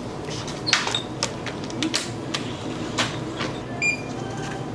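Items being handled and rung up at a shop checkout counter: a string of light clicks and knocks of packages, then one short electronic beep, likely a barcode scanner, just before the end, over a steady low hum.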